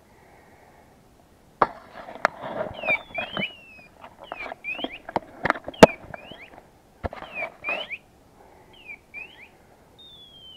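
Rustling and sharp clicks close to the microphone as someone moves through dry grass and brush, from about one and a half seconds in until about eight seconds, with short high chirps in pairs and a falling whistle twice.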